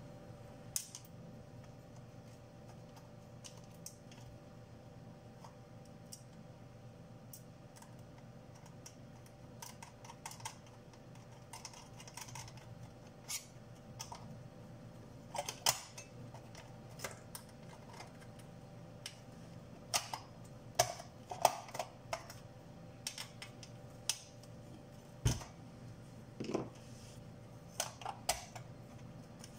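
Scattered clicks, taps and light knocks as the opened plastic and metal housing of a Biosys BPM 200 SpO2 monitor and its internal parts are handled and fitted back together, with a small hand tool among them. The knocks come more often and louder from about a third of the way in, over a steady low hum.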